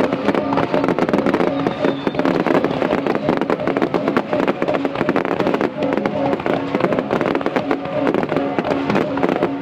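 Fireworks display: a dense, continuous barrage of rapid bangs and crackles as aerial shells burst overhead.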